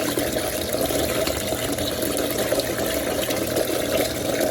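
Cold water running from a kitchen tap onto okra in a strainer, a steady rush of water that rinses the slime off.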